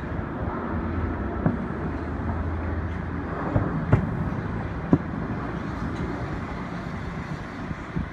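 Distant fireworks going off: a few sharp bangs, the clearest about four and five seconds in, over a steady low rumble of city background noise.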